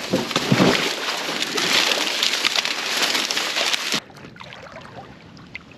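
Water sloshing and dry corn stalks rustling and crackling as someone pushes along a flooded row of standing corn. About four seconds in it cuts off abruptly to quieter lapping water.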